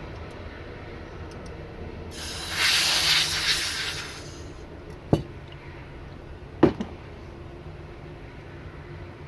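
A loud hiss lasting about two seconds, then two sharp clicks a second and a half apart as small parts of an airsoft gearbox are handled, over a steady low workshop hum.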